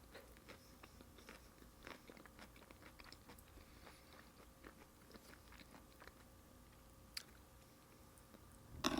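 Close-miked eating sounds: quiet chewing with small crunches, a sharper crunch about seven seconds in and a louder bite near the end.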